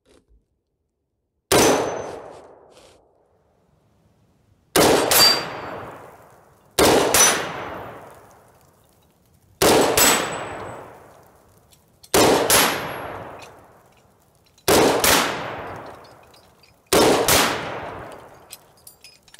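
A 6.5 Grendel AR-15 rifle with a 20-inch barrel fires seven single shots about two to three seconds apart, each shot echoing away over a second or two. Several shots are followed by a faint high ring of steel targets being hit.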